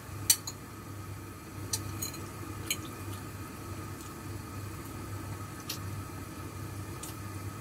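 Covered pot of chicken simmering under a glass lid on the stove: a steady low hum, with a few light sharp clicks, the loudest just after the start.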